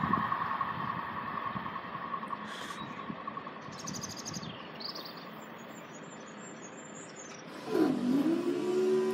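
The Class 158 diesel multiple unit's running noise dies away as it recedes, with birds chirping in the lull. Near the end a pitched hum starts, dips briefly in pitch and then holds steady, as the crossing barrier mechanism starts lifting the barriers.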